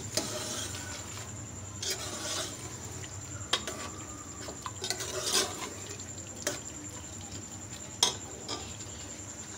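Metal spoon stirring pieces of mutton tripe in hot oil in an aluminium pressure cooker, scraping and knocking against the pot with a light sizzle of frying. Several sharp knocks stand out, the loudest about eight seconds in.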